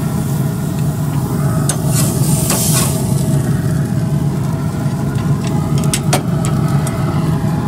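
A metal spatula scraping and clicking on a hot grill grate as swordfish steaks are lifted off, with a brief sizzle about two and a half seconds in, all over a steady low hum.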